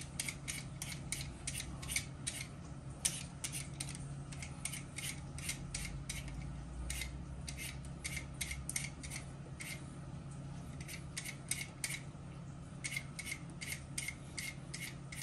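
Carrots and potatoes being peeled: a run of short scraping strokes, about three a second with brief pauses, over a low steady hum.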